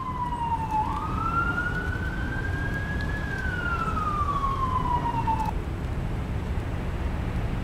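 A siren wailing: its pitch falls, rises and falls again in slow sweeps, then cuts off suddenly about five and a half seconds in, over a steady low rumble.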